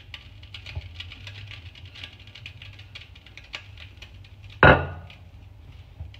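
Wooden rolling pin rolling chapati dough on a kitchen worktop: a run of light clicks and taps over a steady low hum, with one loud knock about two-thirds of the way in, as the pin is set down on the counter.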